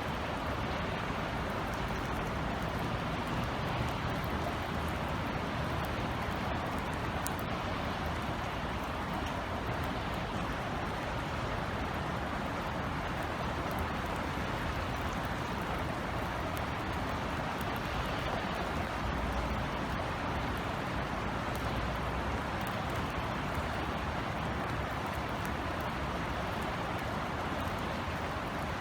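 Rain falling steadily in an even hiss, with faint scattered drop ticks and a low rumble underneath.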